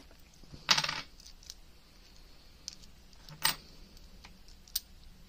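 UK 50p coins, cupro-nickel, clinking together as they are handled and stacked in the hand. A short jangling clatter comes about a second in, followed by a few separate sharp clicks of coin on coin.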